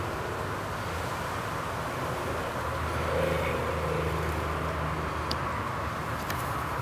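Steady outdoor background rumble with a low hum, swelling briefly near the middle.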